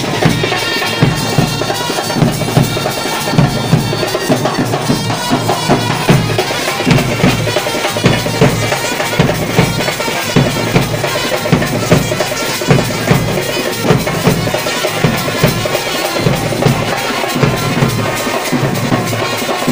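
Street band playing: bass drum and snare drums beat a steady rhythm under a wind instrument carrying a reedy melody.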